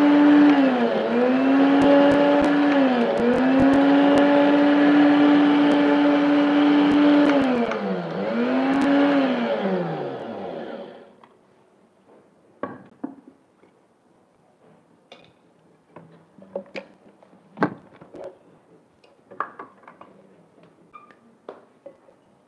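Electric countertop blender grinding dry dosa premix (rice and lentil powder): the motor runs at a steady pitch, sags briefly three times, then winds down and stops about eleven seconds in. Knocks and clatter of the blender jar and bowls follow.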